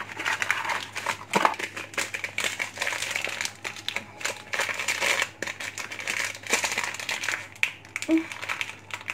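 Foil-lined sachet of flan dessert mix crinkling and crackling as it is handled and torn open by hand, in a run of irregular rustles and small crackles.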